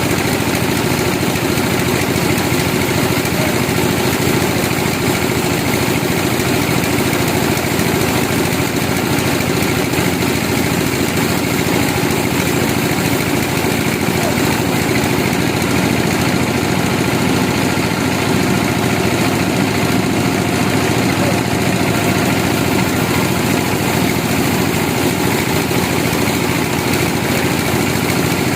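Sawmill engine running steadily, with no pauses or changes.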